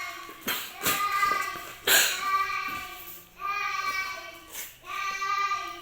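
A child's voice singing long held notes, about four of them with short breaks between. A few sharp clicks or crinkles cut in, the loudest about two seconds in.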